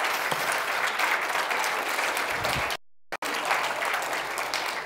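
Audience applauding, many hands clapping steadily at the end of a talk. The sound cuts out completely for a moment about three seconds in, then the clapping resumes.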